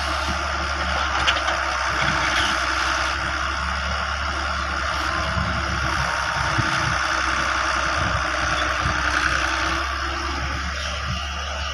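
Heavy diesel engine running steadily, with a sharp clack about a second in.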